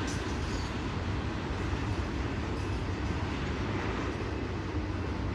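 Steady wind buffeting the microphone, a low rumble with a hiss over it.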